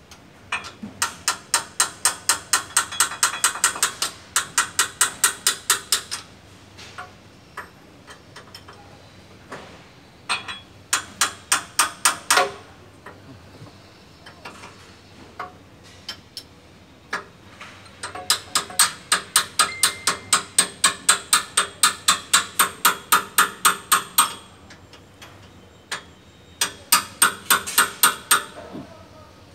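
Moving walkway's handrail drive clicking rapidly and evenly, about five sharp clicks a second, in runs of a few seconds with quieter pauses between: the noise of a worn handrail drive chain rubbing.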